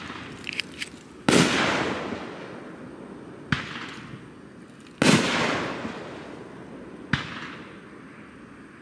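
Aerial firework shells bursting: four booms about two seconds apart, the first and third the loudest, each followed by a long rolling echo. A few faint crackles come in the first second.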